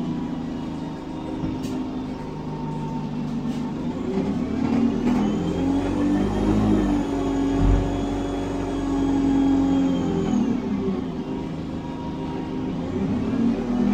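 An ADL Enviro 200 single-deck bus, heard from inside the saloon, driving and pulling away. Its diesel engine runs under load while the Voith automatic gearbox adds a high whine that rises and then falls in pitch. A low thud comes about eight seconds in.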